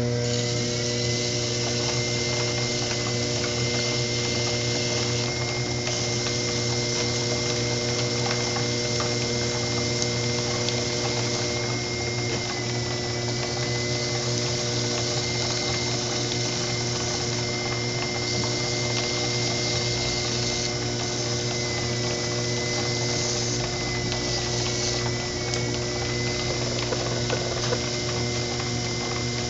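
Electric potter's wheel motor starting up and running steadily, a hum with a high whine that wavers slightly now and then.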